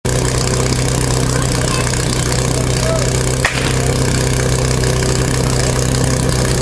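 Portable fire-pump engine running steadily at idle, with one short sharp click about three and a half seconds in.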